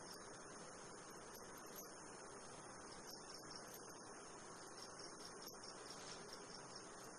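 Faint, steady high-pitched chirping of crickets, with a few faint clicks.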